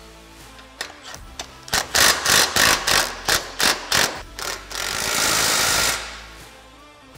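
Cordless impact driver with a 15 mm socket tightening bolts: a run of short trigger pulses from about two seconds in, then about a second of steady hammering. Faint background music underneath.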